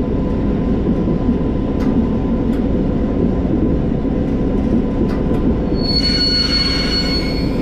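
V100 diesel locomotive running with its engine rumbling steadily and its wheels rolling on the track, with a few sharp clicks from rail joints. About six seconds in, a high, steady wheel squeal sets in as the locomotive takes curving track through the points.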